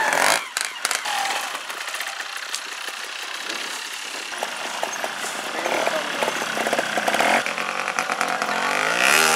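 Trials motorcycle engines running at low revs with throttle blips. Near the end, one engine revs up and falls back.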